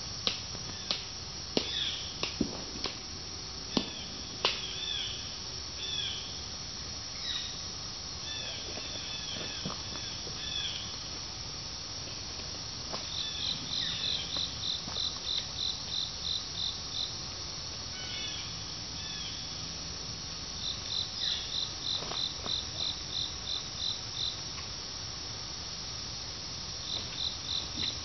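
Insects calling: repeated runs of short high chirps, about three or four a second for several seconds at a time, among other scattered chirps. In the first few seconds, several sharp snaps and cracks of twigs and brush as a person pushes through the undergrowth.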